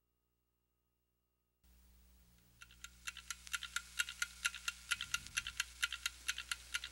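A low steady hum comes in, then rapid, even clicking sets in at about five clicks a second and carries on over the hum.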